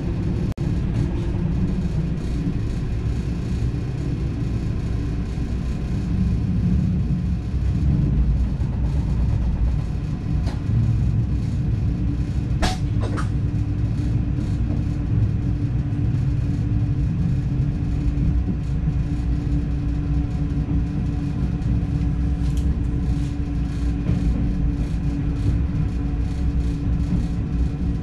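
Inside the driver's cab of an NS DDZ double-deck electric train: a steady low rumble with a steady hum. A few sharp clicks come around the middle.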